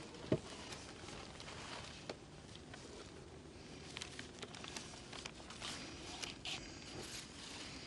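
Old, brittle paper sheets rustling and crackling as hands lift and sort them in a wooden box, with the handling busiest over the second half. A single short thump sounds near the start.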